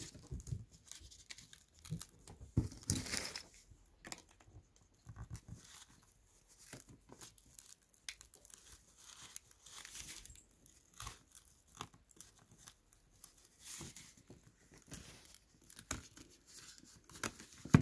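Irregular small scrapes, clicks and crackles of a plastic opening card being worked under a smartphone's glued back cover, the adhesive crackling and tearing as it separates.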